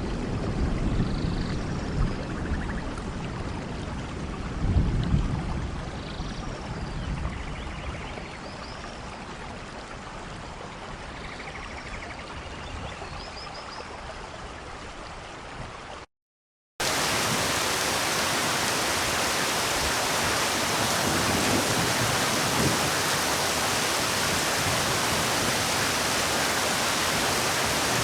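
Rain falling in a steady hiss, with a few short high chirps and some low rumbles during the first half. After a brief drop-out about halfway, a louder, even downpour hiss takes over.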